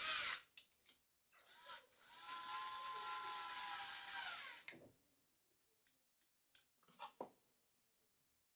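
A short loud clatter, then the electric motor of a large rotary hammer drill runs for about three seconds with a steady whine, winding down at the end. A couple of small clicks follow near the end.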